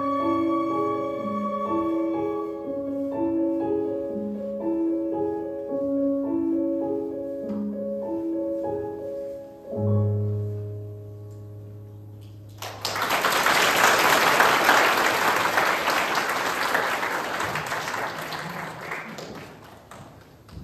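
Orchestral music plays a repeating figure and ends on a long held low chord. Applause breaks out about two-thirds of the way in and dies away toward the end.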